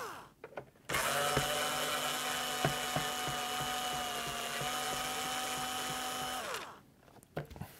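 Small cordless electric screwdriver running in reverse, backing a screw out of a plastic Nerf blaster shell. It starts about a second in with a steady whine, runs for about five and a half seconds, then winds down and stops.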